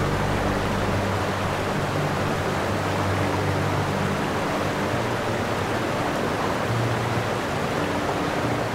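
Steady rushing wash of surf breaking on a shingle beach, with soft background music of slow, low held notes beneath it.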